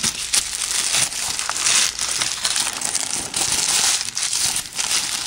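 Thin white wrapping paper crinkling and rustling as fingers unfold it: a continuous run of rustles with many small crackles.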